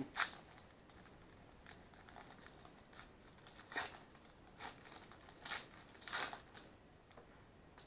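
Sports trading cards being handled and slid against one another: a run of short rustles and card slides, the loudest a little past the middle.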